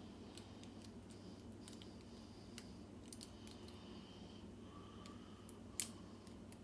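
Faint, scattered metallic clicks and taps of small lock parts and tools being handled, with one sharper click near the end, over a steady low hum.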